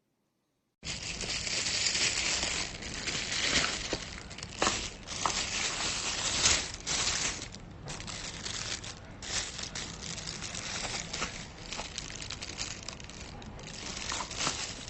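Crinkling and crumpling of packaging being handled, with many irregular sharp crackles. It starts abruptly about a second in.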